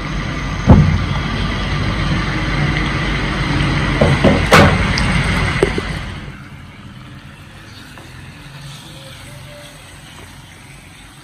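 Marinated chicken pieces sizzling in hot oil in a non-stick frying pan, with a sharp knock just under a second in and another about halfway through the loud part. About six seconds in the sizzle drops to a much quieter level.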